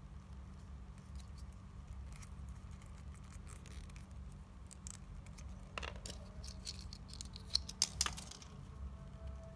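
Fingers handling a small plastic L.O.L. Surprise doll and its accessories: light rubbing and faint taps over a steady low hum, with a few sharp plastic clicks about two seconds before the end.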